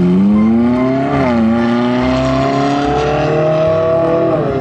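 Ferrari 458 Italia's V8 engine accelerating hard: the revs climb, drop at an upshift about a second in, climb again, and fall near the end.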